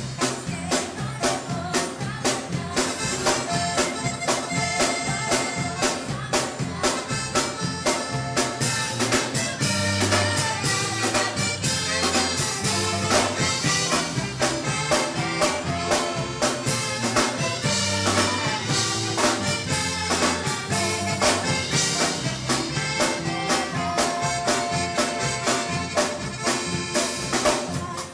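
Live band playing: two saxophones carry the melody together over a steady drum-kit beat, electric bass and keyboard.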